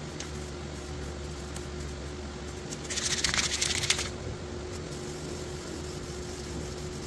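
Aerosol spray paint can spraying: one hiss lasting just over a second, about three seconds in.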